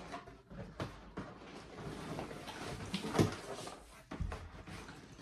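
Cardboard packaging being handled: a large Lego set box flipped over and shaken so the inner box slides out. Scattered scraping, rustling and knocks, with a louder thump about three seconds in.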